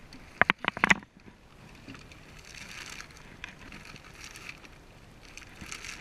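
Handling noise close to the microphone: four sharp knocks in quick succession within the first second, then a faint steady rustling hiss.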